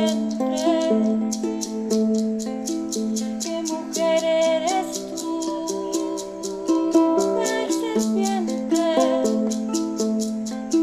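Ukulele strummed in a steady rhythm of about three to four strokes a second, with a voice singing a slow, wavering melody over it.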